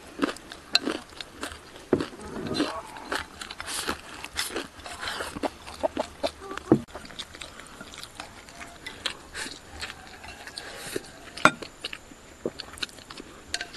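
Eating sounds: chewing rice, with chopsticks clicking and scraping against ceramic rice bowls in quick, irregular taps.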